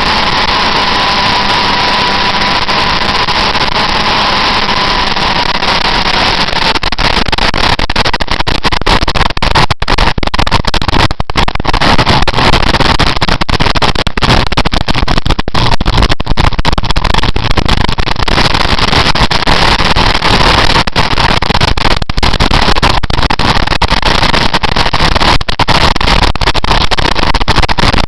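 Motorcycle riding at road speed, heard through a bike-mounted camera's microphone: loud, distorted engine and wind noise, with a faint steady whine over the first few seconds and crackling breaks from about seven seconds in.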